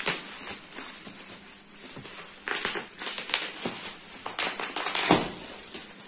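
Plastic bubble wrap crinkling and rustling as it is unwrapped by hand, in irregular crackly bursts that grow louder about halfway through.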